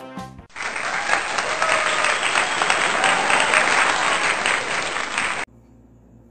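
A crowd applauding, about five seconds of dense clapping that starts and cuts off abruptly, as a sound effect over a title card; the last notes of an intro jingle end just before it.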